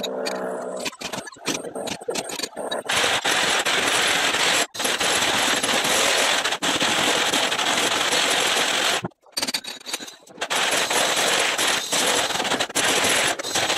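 Corded electric rotary hammer working into a concrete wall: a few short bursts, then long continuous hammering runs broken by a brief stop about nine seconds in.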